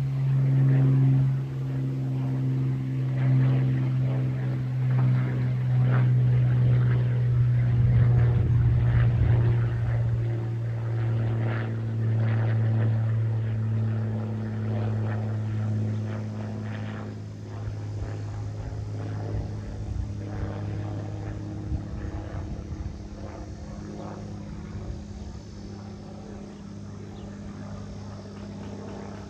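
Small propeller airplane flying overhead: a steady engine drone that is loudest about eight seconds in, then drops slightly in pitch and fades as the plane moves away.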